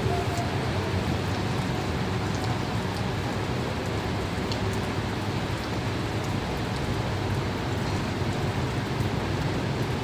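Steady rain falling, with a few faint sharp drop ticks over an even hiss and a steady low rumble underneath.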